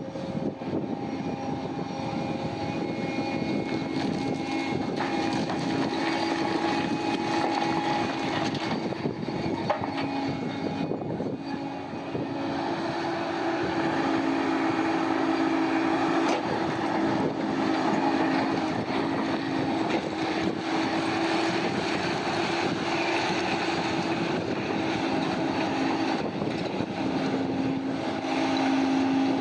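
Heavy diesel mining machinery running continuously: a steady engine drone with a held low hum, getting a little louder after about twelve seconds.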